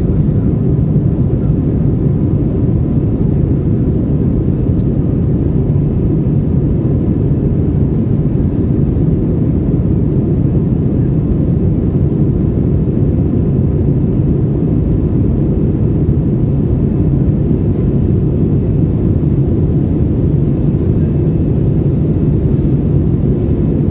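Airliner engine noise: a steady low roar that holds the same pitch and level throughout.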